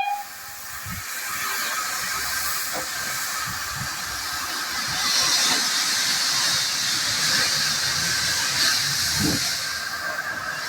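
Steam hissing from the LMS 'Jinty' 0-6-0 tank locomotive 16440 as it stands ready to depart. The hiss swells louder about halfway through and again near the end.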